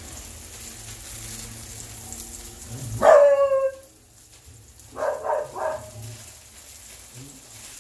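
A dog barks: one loud bark with a falling pitch about three seconds in, then three quick barks about two seconds later. A burger sizzles faintly in a cast-iron frying pan underneath.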